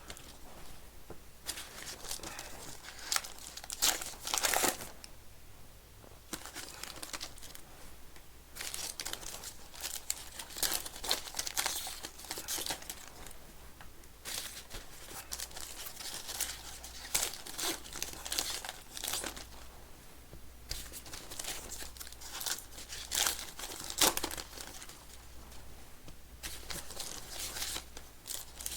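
Plastic wrapping on trading card packs crinkling and tearing as they are handled and opened, in irregular crackles.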